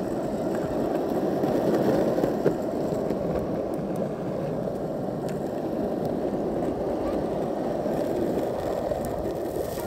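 Wheels rolling over a rough, gravelly tarmac path: a steady rumble with a few faint clicks.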